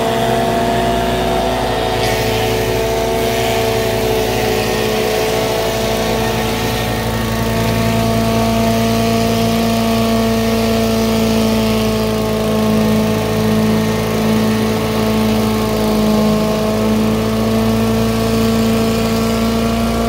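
Engine of a walk-behind ski-jump track-cutting machine running steadily at a near-constant pitch while it cuts the in-run track, with a hiss of snow being thrown up.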